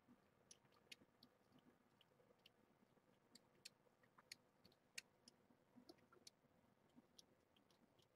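Near silence, with faint, irregular soft clicks about once or twice a second.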